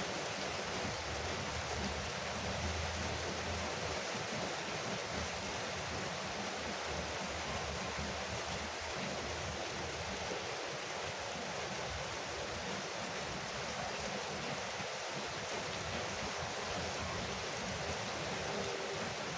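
Heavy rain falling steadily on a veranda roof: a dense, even hiss without breaks.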